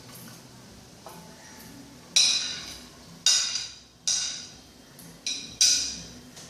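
Pestle pounding garlic and red chilies in a mortar: five sharp, ringing strikes at an uneven pace, starting about two seconds in.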